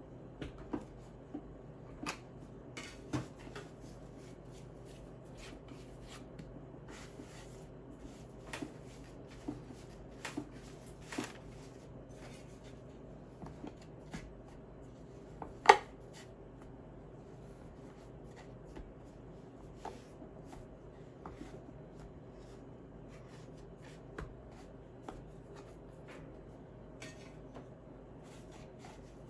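Scattered light taps, clicks and rubbing from hands handling things in a kitchen, with one sharp click about sixteen seconds in, over a steady low hum.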